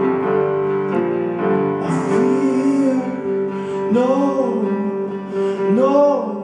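Live band music: plucked and keyboard chords over a held note, then from about two seconds in a wordless melody line that swoops up and down in phrases.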